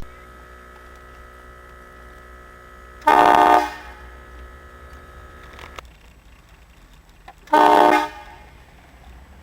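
Aftermarket air train horn on a Jeep Cherokee, fed from a 150 psi air tank, sounded in two short, loud blasts of about half a second each, some four seconds apart.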